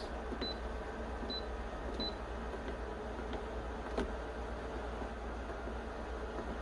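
Three short high-pitched beeps from a GE drip coffee maker's control panel as its buttons are pressed, then a single click about four seconds in, over a steady low hum.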